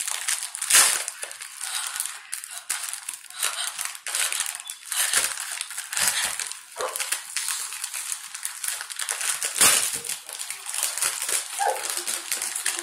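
A crinkly plastic packet being crumpled and twisted in the hands while it is pulled open: a continuous crackling rustle with two louder sharp crackles, about a second in and near the end.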